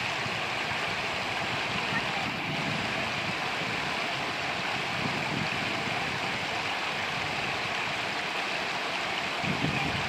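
Steady rush of a shallow mountain creek tumbling over boulders in small whitewater cascades.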